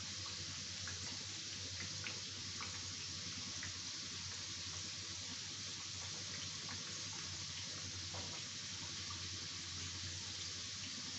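Oil sizzling steadily in an iron kadhai as sattu-stuffed littis deep-fry, with scattered small crackles and a faint low hum underneath.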